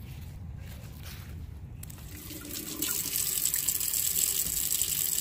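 Faint low rumble at first, then water starts running from a tap about two to three seconds in and runs on steadily.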